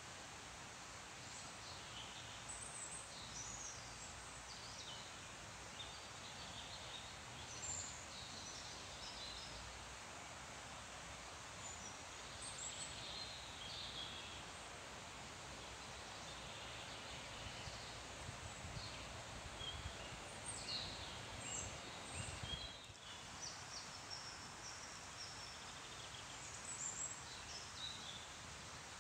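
Many small songbirds chirping and calling in short phrases over a steady hiss of leaves rustling in the wind.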